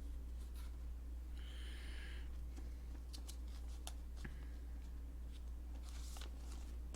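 Trading cards being handled: a few faint clicks and soft rustles of cards being picked up and moved, over a steady low electrical hum.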